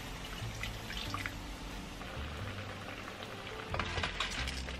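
Seafood stock poured into a hot wok of stir-fried seafood and vegetables, sizzling and bubbling, with a burst of crackles about four seconds in. Soft background music with steady low notes runs underneath.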